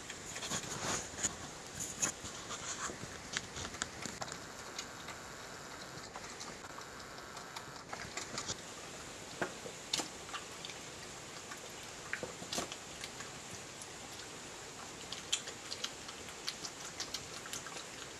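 European badger eating chips off a plastic tray at close range: irregular chewing clicks and crunches, some sharper than others, over a steady hiss.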